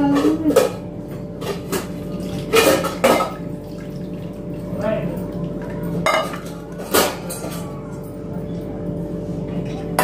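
Clinks and knocks of stainless-steel plates and a metal hand grater being handled while carrots are prepared: several separate sharp strikes a second or more apart, over a steady low hum.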